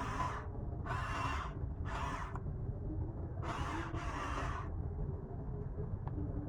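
Small electric motors of RC construction machines running in three short on-off bursts over a steady low rumble.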